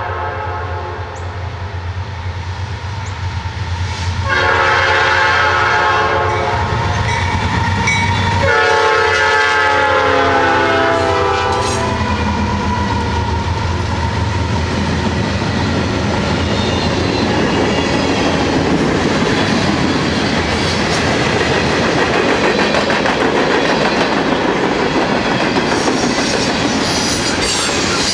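Lead locomotive's Nathan P5 five-chime horn sounds two blasts, a short one and then a longer one, as a six-unit diesel locomotive lashup rumbles past. The engines fade and a long string of freight cars follows, wheels clicking over the rail joints.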